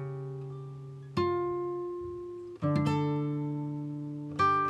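Background music: slow chords on an acoustic-guitar-like plucked string instrument, a new chord struck about every one and a half seconds and left to ring out.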